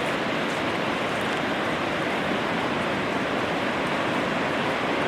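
Steady, even roar of ocean surf on a beach, with no distinct wave breaks standing out.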